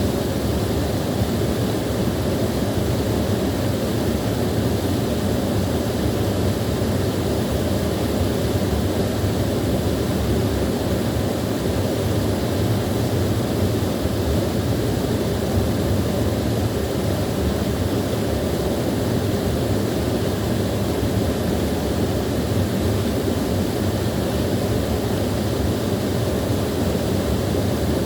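Small waterfall rushing steadily, a continuous low, even roar of falling water.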